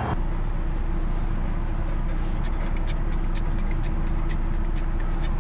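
Steady low machine drone with a constant mid-pitched hum and a few faint clicks over it.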